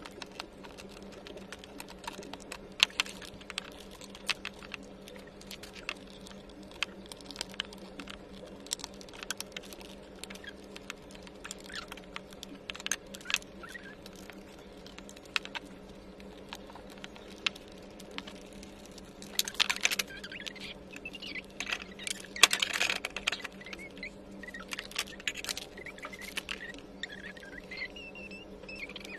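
Scattered small clicks and taps of wooden toy-kitchen panels and fittings being handled during assembly, with two louder bouts of clatter and rustling about two-thirds of the way through, over a steady low hum.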